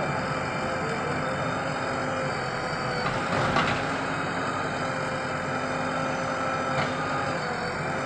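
JCB 3DX backhoe loader's diesel engine running steadily while the backhoe arm is worked, with a brief louder surge about three and a half seconds in.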